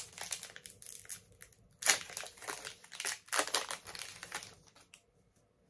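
Foil wrapper of a Pokémon card booster pack crinkling as it is handled and opened, in irregular crackles that die away near the end.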